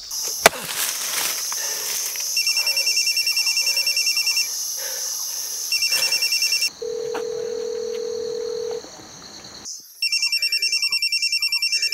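Mobile phone ringing with a fast, trilling electronic ringtone that comes in three bursts, with a single steady beep lasting about two seconds between the second and third. A high, steady insect chirring runs underneath.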